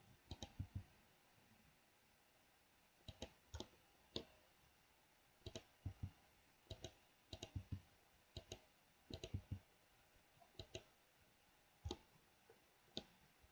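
Faint, irregular clicks of a computer mouse and keyboard keys, some coming in quick pairs, as bones are grabbed, moved and placed in 3D software.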